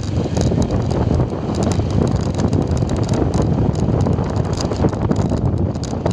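Wind buffeting the microphone of a moving motorcycle, a steady low rumble, with the bike's running noise and loose gravel crackling under the tyres.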